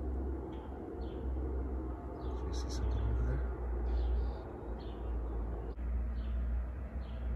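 Small birds chirping in woodland, short high chirps about once a second with a brighter flurry of calls about two and a half seconds in, over a steady low rumble of wind on the microphone.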